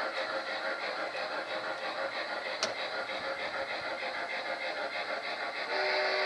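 Gauge 1 model freight cars rolling steadily along garden track, the wheels running over the rails, with one sharp click about halfway. Near the end the model Erie Triplex locomotive's electronic whistle starts, a steady chord of several tones.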